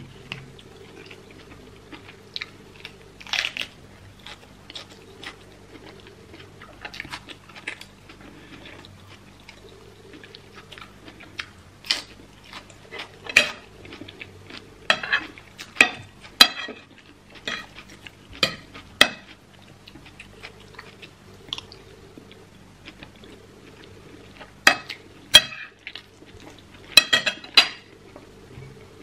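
Metal spoon scraping and clinking against a ceramic plate while scooping rice and sauce, with chewing in between. The clinks come irregularly and are loudest in the second half.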